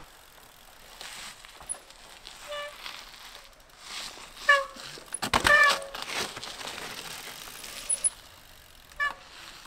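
Mountain bike rolling over rock and gravel with several short brake squeals. The loudest moment, about five seconds in, is the bike landing off a small rock drop: a scrape and thud together with a squeal as the back brake is applied to stop quickly.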